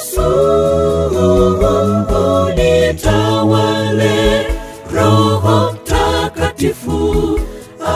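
Gospel choir singing a cappella in harmony, young women's and men's voices together over a deep bass line, with no instruments.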